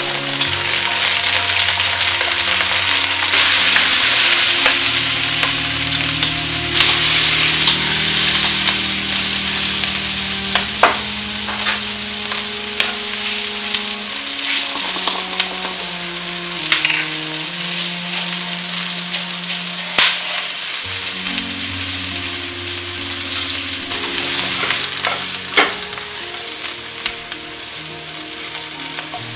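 Chopped carrots, leek, celery and onion sizzling as they fry in a pot, stirred with a wooden spoon, with a few sharp knocks of the spoon against the pot. The sizzle is loudest in the first several seconds, then settles lower.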